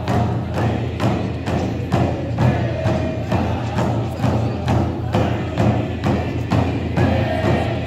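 Alaska Native frame drums struck together in a steady beat, about two strokes a second, under a group of men singing a traditional song.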